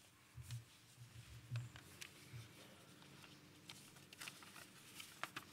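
Faint footsteps thudding on the stage during the first couple of seconds as a man walks up to the lectern. Then light paper rustling and scattered clicks as he sets down his notes and settles at the microphone.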